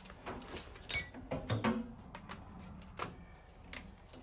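Hand tools working on metal under the truck: scattered clicks and knocks, with one sharp, ringing metallic clink about a second in, as a bolt is being loosened on the gas tank mounting.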